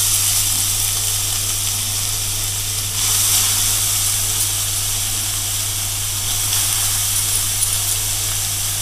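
Grated carrots sizzling in hot ghee in an aluminium pot, a steady high hiss as they start to fry.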